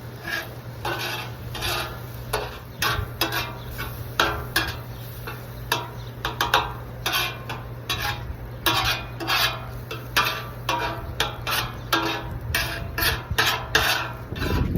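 Metal spatula scraping and stirring food on a Blackstone flat-top griddle: quick, repeated scrapes, roughly two a second, over a steady low hum.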